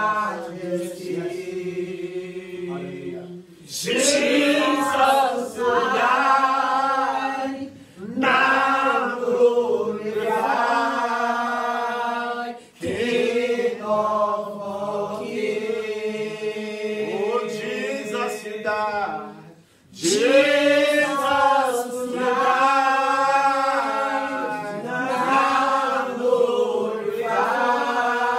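Slow, unaccompanied worship singing led by a man's voice through a microphone, in long held phrases broken by brief pauses every four to seven seconds.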